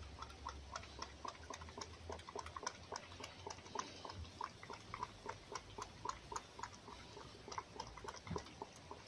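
Fox lapping and chewing raw egg from a bowl: a quick, even run of small wet clicks, about four a second.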